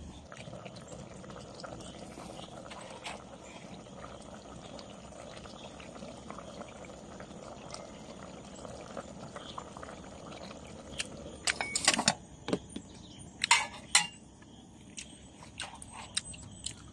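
A pot of vegetable stew simmering on a portable butane camp stove, a steady bubbling hiss. About eleven seconds in come several sharp metal clanks, loudest around twelve and fourteen seconds in, as the aluminium pot and lid are handled and the lid is set back on.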